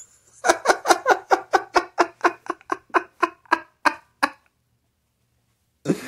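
A man laughing in a quick run of short "ha" pulses, about four or five a second, fading toward the end, followed by a breathy exhale just before the end.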